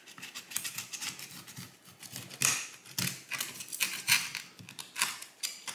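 Thin metal pry tool sawing back and forth through softened adhesive under a smartphone's cracked glass back panel, in quick, irregular scraping strokes with small clicks.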